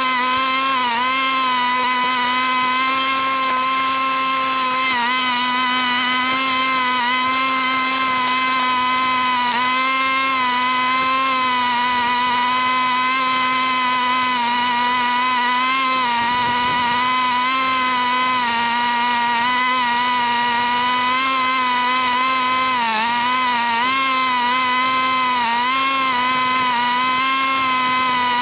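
Lawn mower engine running at a steady, high-pitched drone, dipping briefly in pitch a few times.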